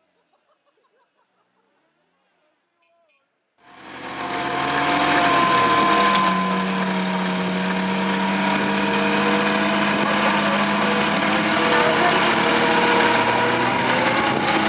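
Near silence for about three and a half seconds, then a Mitsubishi L200 pickup's engine cuts in loud and runs hard at a steady, high pitch as the truck labours to climb out of a muddy ditch.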